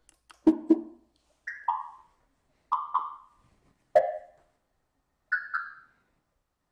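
Short plinking notes at changing pitches, each a quick pair, about one every second and a quarter, played through the R2-D2 build's amplifier and speaker.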